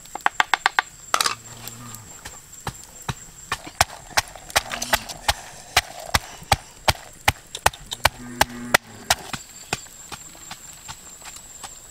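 Wooden pestle pounding red chillies and garlic in a clay mortar: sharp knocks, a quick flurry at the start and then about two to three a second, stopping about nine seconds in.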